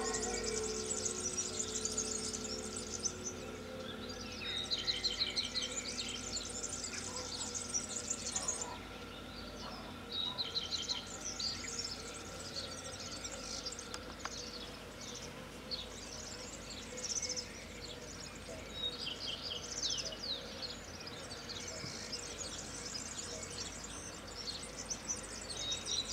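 Small songbirds chirping and singing in short high phrases and quick trills, on and off throughout. Beneath them, the lingering hum of bells fades away over the first few seconds.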